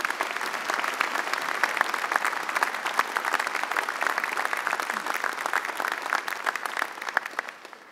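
Audience applauding, a dense clapping of many hands that dies away near the end.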